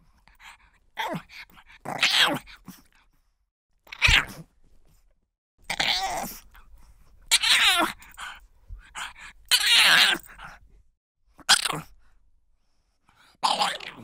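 A pug barking and yelping in a string of about nine short, separate calls, roughly one every second or two, with pauses between them.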